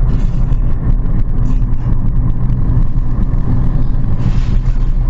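Car engine and road noise while driving: a steady low hum from an automatic-transmission car at cruising revs, with a brief hiss about four seconds in.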